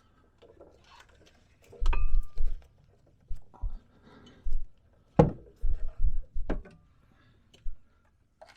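Metal tools and brake parts clinking and knocking as they are handled during a brake job, with a short metallic ring about two seconds in and sharper knocks about five and six and a half seconds in, among low dull thumps.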